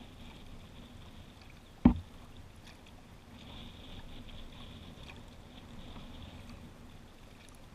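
Quiet sounds of a kayak being paddled on a calm river, with one sharp knock about two seconds in.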